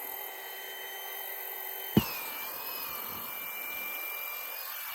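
Small rechargeable electric air pump running against a fully inflated air mattress, giving a steady high-pitched whine: the sign that the mattress is full. About two seconds in there is a sharp knock, and the whine drops slightly in pitch and continues.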